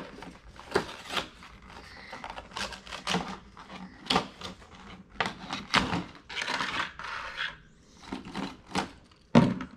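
Cardboard and plastic blister packaging of a toy monster truck being torn and pried open by hand: irregular crackling, tearing and clicking of plastic and card. There is one louder thump near the end.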